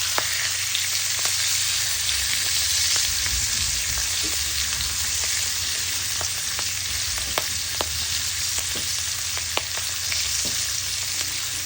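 Salmon sizzling on a hot grill, freshly oiled, with a steady hiss and scattered crackling pops.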